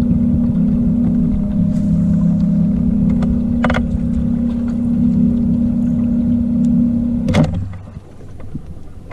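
Boat outboard motor running steadily under way, with heavy rumble from the boat moving over the water; the sound drops off near the end.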